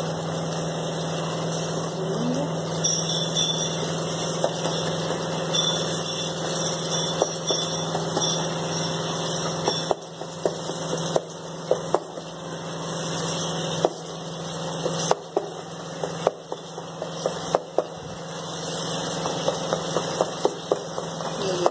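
Onion-tomato masala frying on high flame in a metal pot and being stirred with a wooden spatula, the spatula knocking and scraping against the pot in sharp clicks from about halfway through. A steady low hum runs underneath and stops about two-thirds of the way in.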